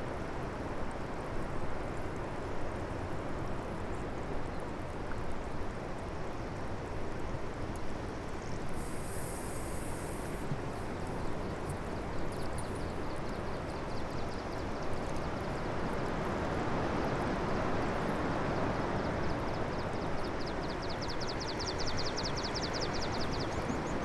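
Passenger train running: a steady rumble and rush, with a faint high whine that rises through the second half.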